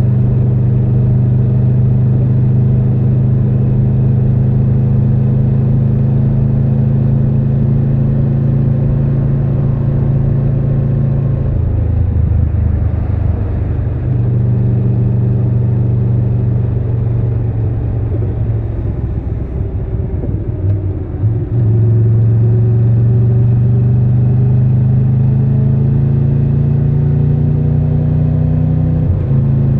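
Triumph Tiger 1200 Rally Pro's three-cylinder engine running steadily under way. Its pitch shifts about twelve and fourteen seconds in, turns uneven for a few seconds past the middle, steadies again, and drops abruptly near the end.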